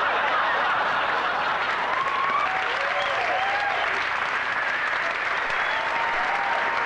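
Live audience applauding steadily after a punchline, with a few whoops rising out of the crowd.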